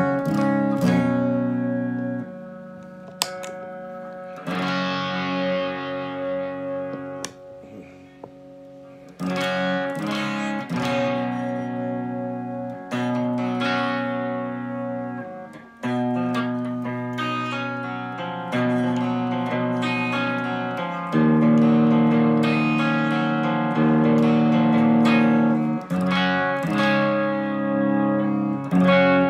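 Epiphone Explorer electric guitar played clean through a Fender Supersonic amp, with ringing chords and picked notes. It gets noticeably louder about two-thirds of the way through, the Black Cat overdrive being used as a clean boost.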